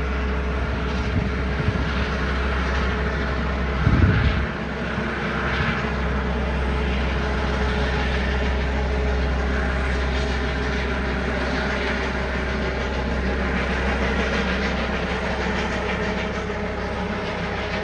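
Helicopter in flight, its rotor and engine making a steady drone, with a brief low thump about four seconds in.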